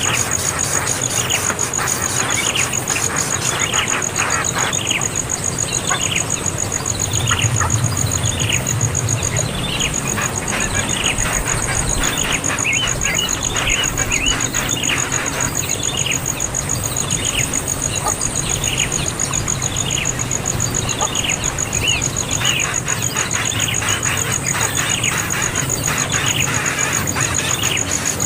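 A young bird calling over and over in short, downward-sliding chirps, a little under two a second without a break: the insistent begging calls of a chick wanting food.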